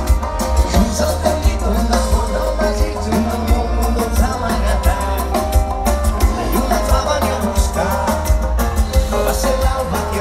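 A live band playing an upbeat song through a loud festival PA, heard from within the crowd: heavy bass, a steady drum beat and voices singing.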